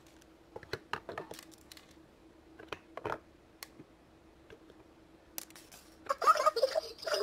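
Scattered light clicks and taps over a faint steady hum, typical of small plastic toys or packaging being handled. About six seconds in, a much louder voice-like sound begins.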